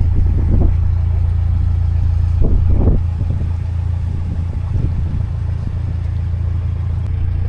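Narrowboat's diesel engine running with a steady low hum, dropping a little in level about three seconds in.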